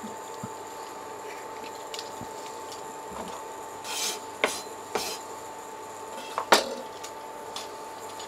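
A kitchen knife scrapes and knocks on a wooden cutting board while ginger peelings are swept aside. There is a brief scrape about four seconds in and a few sharp clicks, the loudest about six and a half seconds in.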